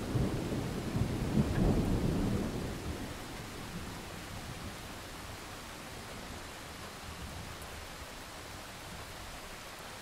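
Thunder rumbling through the first three seconds, loudest about a second and a half in, then fading away. Steady rain runs underneath and carries on alone after the rumble dies out.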